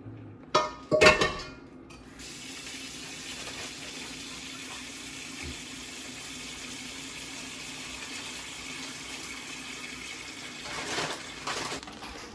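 A couple of sharp knocks, then a kitchen tap running water steadily into a sink, swelling briefly near the end.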